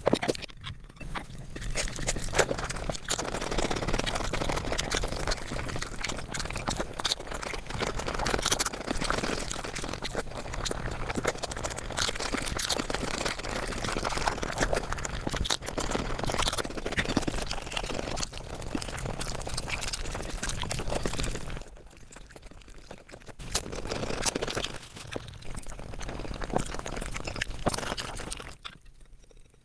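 Close-miked eating sounds sped up to five times normal speed: a rapid, dense run of chewing, crunching and lip smacks. It drops quieter for a moment about 22 seconds in and again near the end.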